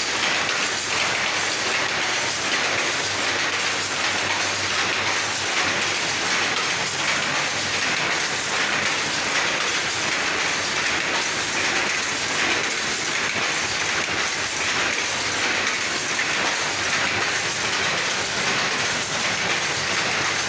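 Power loom running at speed: a steady, fast rhythmic mechanical clatter of the weaving mechanism that never pauses.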